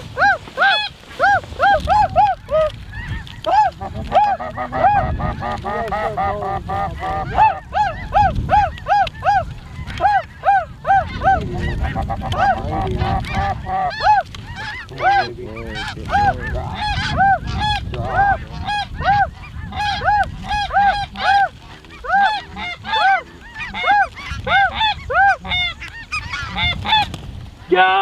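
Snow geese calling, many short arched honks several a second overlapping into a continuous chorus, with a low rumble of wind underneath.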